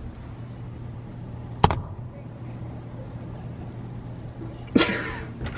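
A steady low hum, with a single sharp click about a second and a half in and a short burst of voice near the end.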